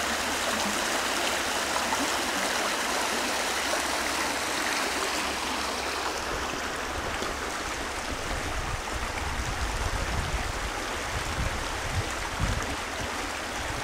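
Small stream rushing and splashing over rocks, a steady hiss. After about six seconds the bright splashing fades and an uneven low rumble comes and goes.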